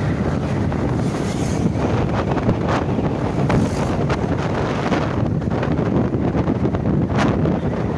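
Wind rushing over the microphone of a moving motorcycle at road speed, steady and loud.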